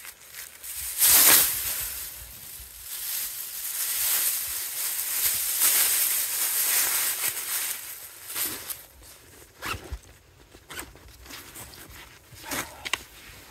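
Rustling and brushing close to the microphone, loudest about a second in and again through the middle, followed by scattered clicks and taps.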